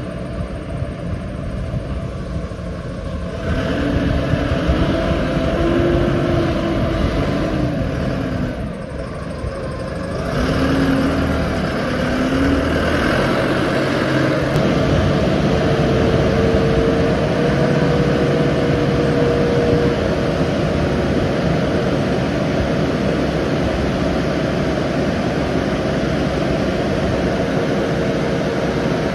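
Five-ton rough terrain forklift's engine running and revving as the machine is driven and worked. A whine over the engine glides up and down a few times, then holds at a steady pitch.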